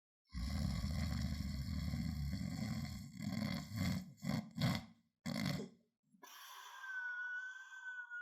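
Person snoring: one long, low snore of about two and a half seconds, then a few short snorts, then a thin whistling breath from about six seconds in.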